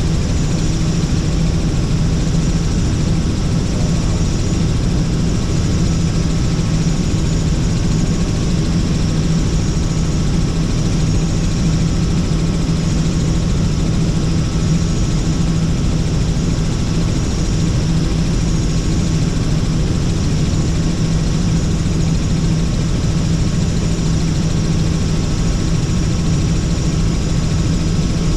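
Helicopter in flight heard from inside its cabin: engine and rotor make a loud, steady drone with a strong low hum and a thin high whine above it.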